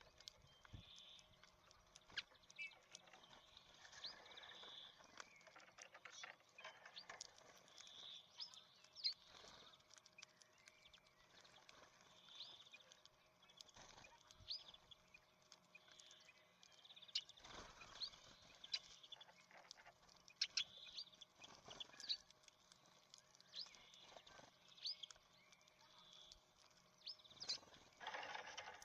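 Small birds at a sunflower-seed feeder, faint: short high chirps every second or so, with scattered sharp clicks and taps.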